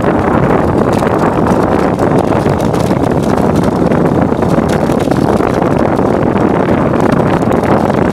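Runners of a steering sled sliding down a packed-snow road: a loud, steady hiss, with wind buffeting the microphone.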